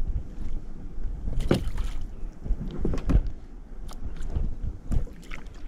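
Kayak paddle strokes in seawater, a splash every second or two over low water and hull noise.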